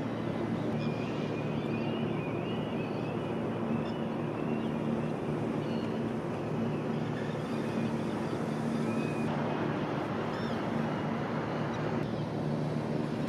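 Harbour ambience: a steady low machinery hum over a continuous background rush, with small birds chirping on and off through the first part.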